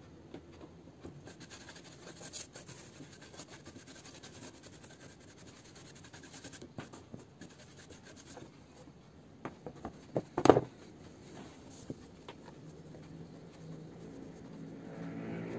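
Small scraping and rubbing sounds of fingers and a pry stick working on a laptop motherboard, with one sharp knock about ten and a half seconds in.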